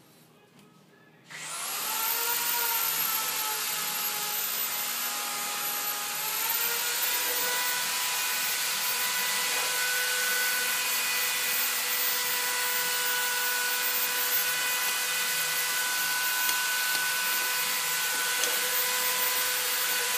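An electric motor-driven blower is switched on about a second in and runs with a steady rushing hiss and a whine; its pitch sags slightly after starting and steps up about six seconds in.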